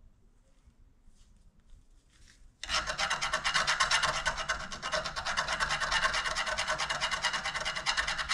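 Metal file rasping the end of a threaded rod, rounding it into a dome. A few faint scrapes, then from about two and a half seconds in, quick, steady filing strokes.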